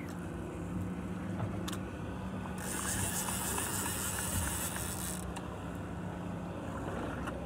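Big-game conventional fishing reel being wound under the heavy load of a hooked shark, a run of light mechanical clicks, over a steady low hum from the boat's idling outboard. A hiss rises from about two and a half seconds in and stops a little past five seconds.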